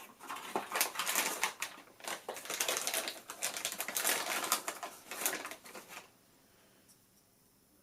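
Packaging of a PC Wi-Fi card being handled and opened: a dense run of rustles, crinkles and small clicks that stops about six seconds in.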